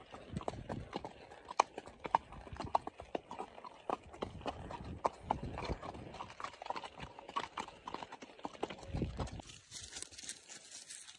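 Hooves of two horses, a ridden grey and a led black horse, striking a packed dirt trail in an uneven clip-clop. The hoof strikes turn fainter near the end.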